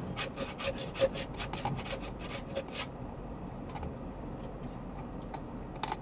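Metal-on-metal scraping and clicking from a homemade steel pilot-bearing puller being turned and seated by hand against a flywheel, a rapid run of clicks that stops about three seconds in. A faint click follows near the end.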